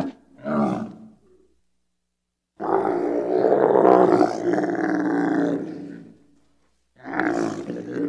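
Camel calling with loud, rough, throaty groans. A short call comes first, then a long one of about three and a half seconds, and another begins near the end.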